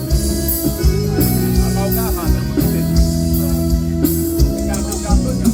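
Band music with no singing: an instrumental passage with guitar over held bass notes and a steady drum beat with cymbals.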